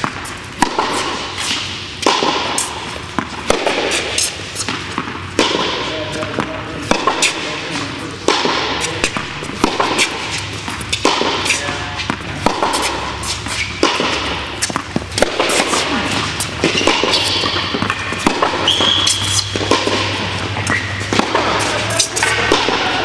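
Tennis rally on an indoor hard court: sharp racquet hits and ball bounces every second or two, echoing in a large hall. Voices carry from nearby courts.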